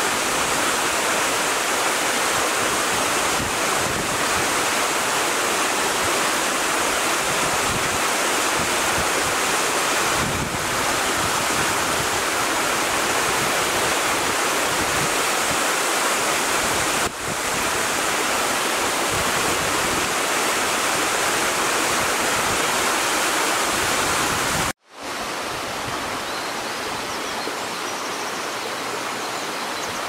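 Steady rush of falling water from a twin waterfall, two streams pouring down a rock face into one plunge pool. The sound drops out for an instant near the end and comes back slightly quieter.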